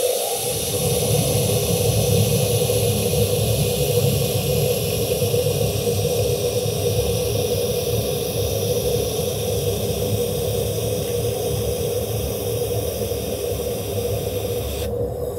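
LightWELD XC handheld fiber laser welder running a continuous weld on 3 mm aluminium plate: a loud, steady hiss with a rough crackle of spatter underneath and a steady hum. The hiss cuts off near the end as the weld stops.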